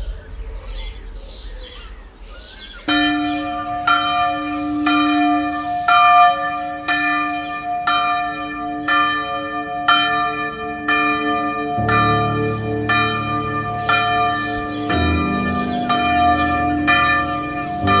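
Church bell struck over and over, about twice a second, each stroke ringing on into the next. It starts about three seconds in, and a low hum joins about twelve seconds in.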